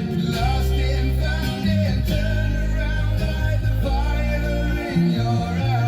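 A pop-rock song with a singing voice, guitar and heavy bass, played through a Haval H6's upgraded car audio system: Blam Audio component and coaxial speakers and a slim Blam subwoofer in the boot.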